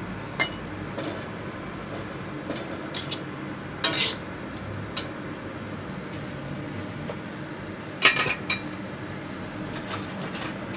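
A metal spoon stirring noodles in a steel wok: scattered clinks and scrapes of metal on metal, loudest in a short cluster near the end, over a steady hiss.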